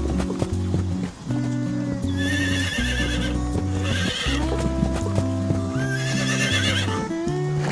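A horse whinnies three times, each call high and quavering, with hooves clopping, over background music with steady bass notes.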